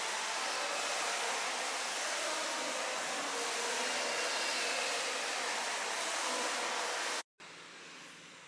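Steady rushing noise of a moving vehicle heard from on board. It cuts off abruptly about seven seconds in, giving way to much quieter room tone.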